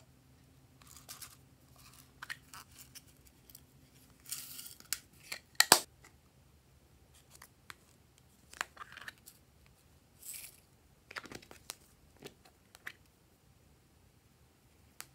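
Hands handling small plastic containers and lids: scattered clicks, taps and short scratchy rustles as they are opened and glitter and sequins are shaken out. One sharp plastic click, the loudest sound, comes about six seconds in.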